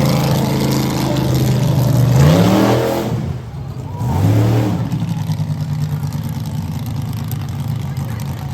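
Monster truck engine running, revved sharply twice about two seconds in, then settling back to a steady lower idle.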